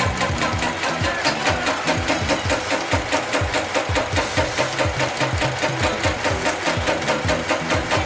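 Global BT13060 heavy-duty programmable pattern sewing machine stitching a pattern into webbing strap. The needle runs at a fast, even beat with a steady machine hum underneath.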